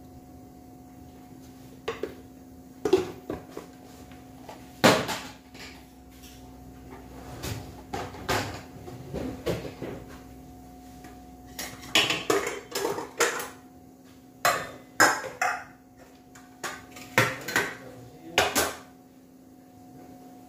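A metal spoon clinks and knocks against a steel kadai, in a string of sharp strikes that come singly and in small clusters. A faint steady hum runs underneath.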